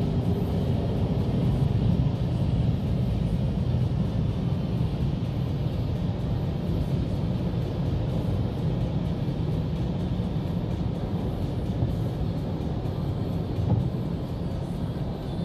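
Automatic car wash machinery running, heard from inside the car's cabin: a steady low rumble of the wash gantry's water jets, brushes or blowers against the car.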